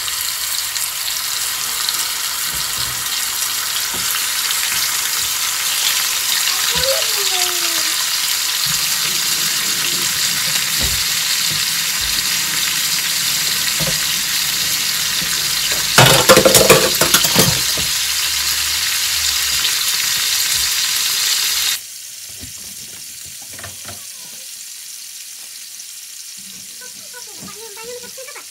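Food frying in a pan, a steady high sizzle, with a brief burst of clattering, as of stirring, about 16 seconds in. About 22 seconds in the sizzle drops off abruptly to a much quieter level.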